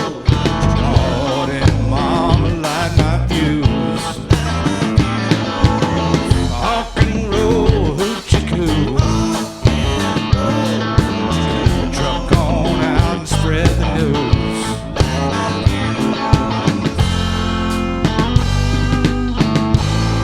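Honky-tonk rock band playing an instrumental passage with drums and guitar playing bent, wavering notes. About 17 seconds in it settles into a long held chord that rings on.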